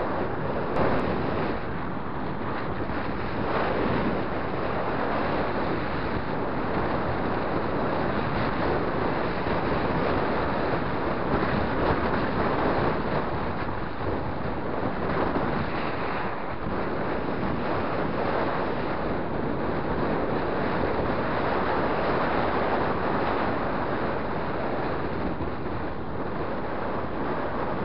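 Steady wind rushing over the microphone of a camera riding on a moving road bike.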